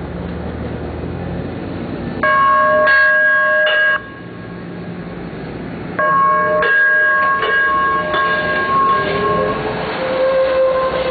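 LA Metro Blue Line light-rail train sounding its horn as it passes close by: a short blast about two seconds in, then a longer one starting about six seconds in. A steady hum from the train runs underneath, and a whine rises slowly partway through the second blast.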